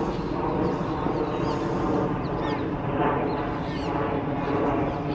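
Water birds calling, with many short, thin, high chirps scattered throughout, over a steady low rumble.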